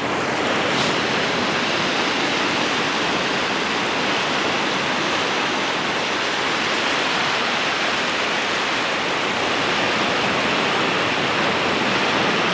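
Steady rushing hiss of sea surf washing on the beach at high tide, even in level throughout.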